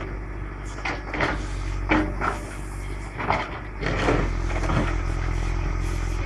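Volvo BM EL70 backhoe loader's diesel engine running steadily, with scattered knocks and scrapes of digging work; the engine grows louder about four seconds in.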